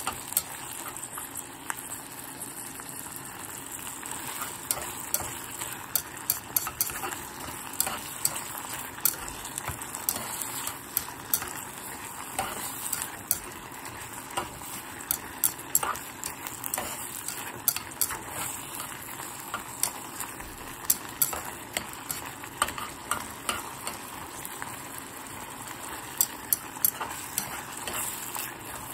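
Sliced pork and onions sizzling steadily in a small granite-coated pot, stirred with black tongs that click sharply and often against the pot.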